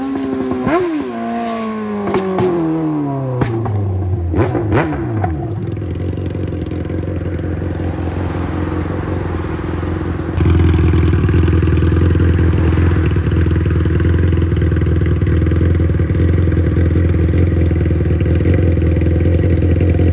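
Yamaha XJ6 600 cc inline-four motorcycle engine winding down with a falling pitch and a run of sharp pops over the first few seconds, then running at a steady note that gets abruptly louder about ten seconds in. The bike's ECU has been remapped.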